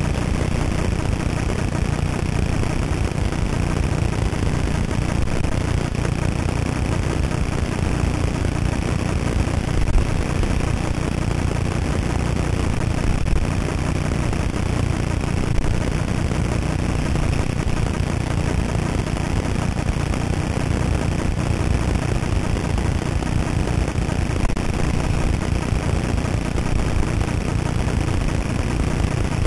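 Steady low rush of wind on the microphone of a camera carried by a downhill skier, mixed with skis sliding over snow, with a few brief louder bumps midway.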